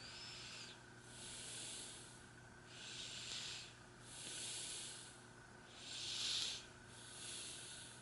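A person breathing in and out close by: about three breaths, each a soft hissy inhale and exhale, over a faint steady hum.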